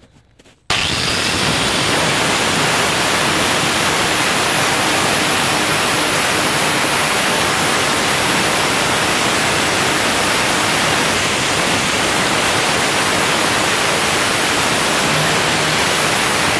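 Work Zone angle grinder grinding the cutting edge of a hedgecutter flail to sharpen it: a loud, steady grinding hiss with a high whine over it, starting suddenly under a second in.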